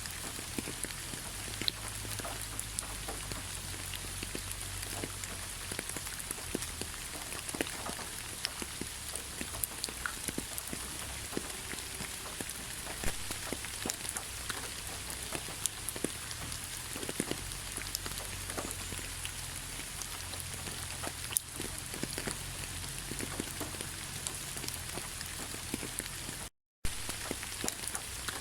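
Heavy rain falling steadily: a dense, even hiss with many individual drops striking as sharp ticks. About 26 seconds in, the sound cuts out completely for a split second.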